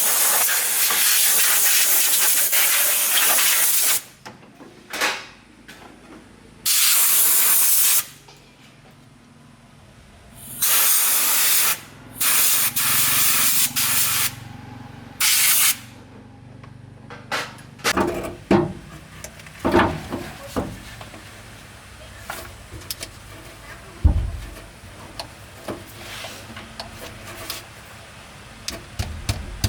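Loud pressurised spray hissing in bursts: one of about four seconds, then several shorter ones. These are followed by scattered knocks and clicks.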